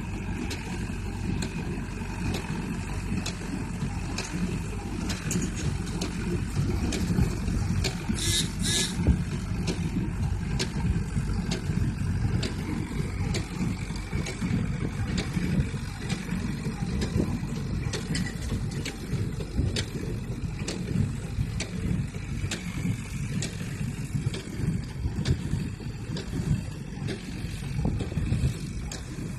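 Massey Ferguson 165 tractor engine running steadily while square baling hay, with the baler working behind it. There is a brief hiss about eight seconds in.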